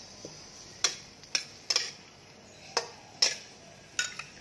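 Metal spatula clinking and scraping against a stainless steel pan while stirring chopped onion in hot oil. There are irregular sharp clinks about every half second, over a faint sizzle.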